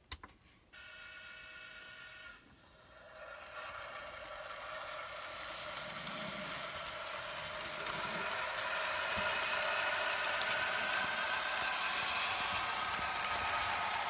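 Märklin S 3/6 H0 model steam locomotive starting off with its train: a steady pitched tone for about two seconds, then a rushing running noise that builds over several seconds and holds steady.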